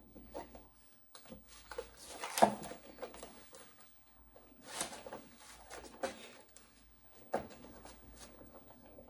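Hand-working noises on a small wooden picture frame and its hardware: scattered light clicks, taps and rustling, with one sharper knock about two and a half seconds in.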